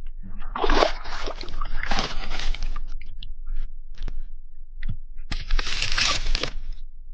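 Crunching, rustling handling noise in two stretches, about three seconds in all and then about a second, with scattered clicks and taps between.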